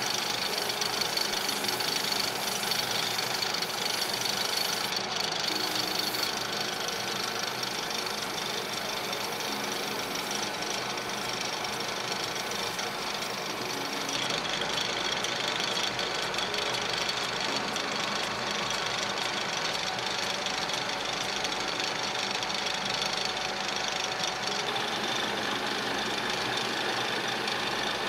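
Metal lathe running steadily, spinning a steel vise handle in its chuck while abrasive paper is pressed against the ball end to polish it, adding a hiss over the machine's steady hum.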